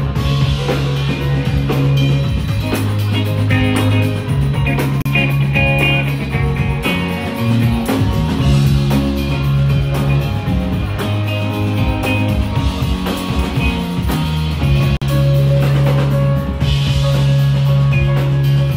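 A live band playing loud rock music, with guitar and a drum kit, heard from the crowd through a phone's microphone.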